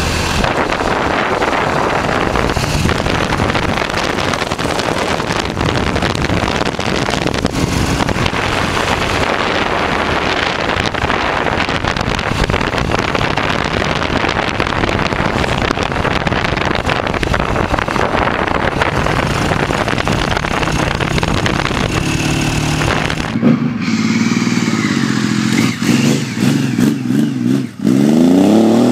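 Triumph Thunderbird motorcycle engine. It is first heard from the rider's seat while riding, mixed with steady wind rush. Then, heard from the roadside, it runs at a steady low pitch and revs up with a rising pitch near the end as the bike pulls away.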